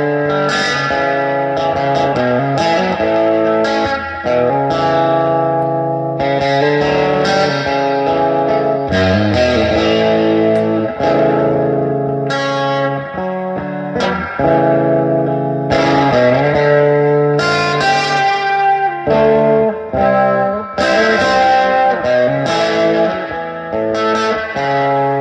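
Fender Esquire electric guitar played through a 1965 Fender Deluxe Reverb amplifier, plugged straight in: a run of picked single-note lines and chords, with brief pauses between phrases.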